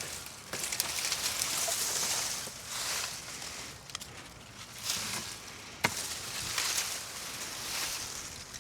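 Garden foliage and vines rustling in repeated swells as the plants are pushed through and handled, with a few sharp clicks.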